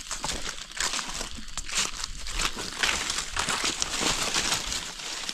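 Dry forest leaf litter crackling and rustling without a break, a dense run of small crisp ticks.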